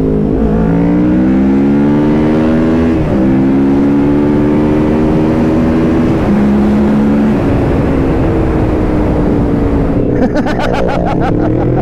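Motorcycle engine heard from the rider's seat, pulling away and climbing in pitch, with a drop in pitch about three and six seconds in as it shifts up a gear, then holding steady at cruising speed. Wind rushes over the bike the whole time.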